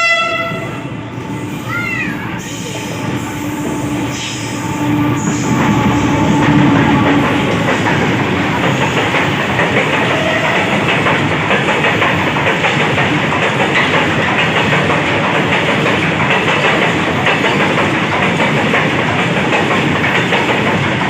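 WDG4G diesel locomotive sounding its horn in two short blasts, the second bending in pitch, then the train running past at speed: a rumble and clatter of wheels on rail joints that grows louder over the first few seconds and then holds steady.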